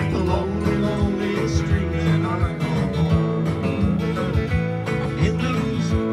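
Several acoustic guitars strumming a country tune together at a steady pace.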